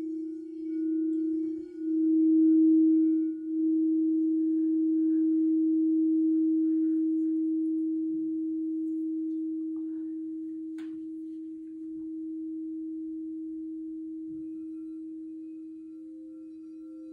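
Crystal singing bowl ringing one low, steady tone that swells and pulses in the first few seconds, then holds and slowly fades. A fainter, higher second tone joins near the end.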